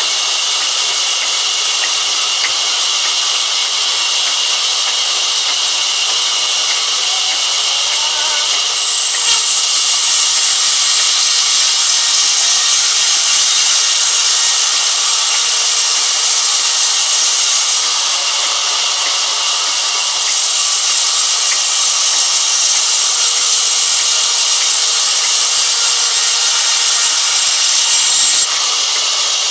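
Large sawmill band saw with its blade cutting lengthwise through a thick timber: a steady, loud, hissing saw noise. It grows brighter and a little louder about nine seconds in.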